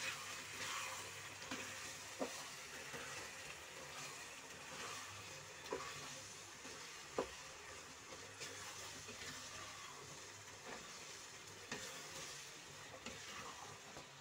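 Thick mashed-vegetable pav bhaji sizzling gently in a kadai while a wooden spatula stirs and scrapes through it, with a few sharp taps of the spatula against the pan.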